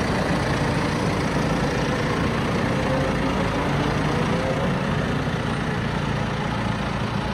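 John Deere 6130R tractor running steadily, driving the straw bedding machine hitched behind it: a constant engine drone under an even rushing hiss.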